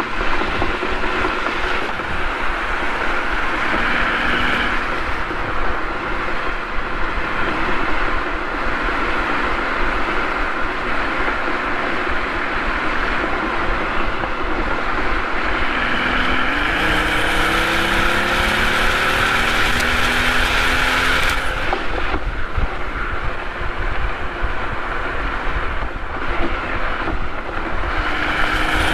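Mercedes-Benz SL65 AMG's twin-turbo V12 heard from inside the cabin at highway speed over steady road and wind noise. A little past the middle the engine note climbs for about five seconds under acceleration, then drops off abruptly as the throttle is released. It starts climbing again near the end.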